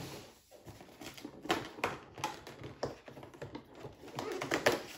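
Irregular clicks and taps of cardboard packaging being handled and opened, as a small candle is taken out of an advent calendar compartment.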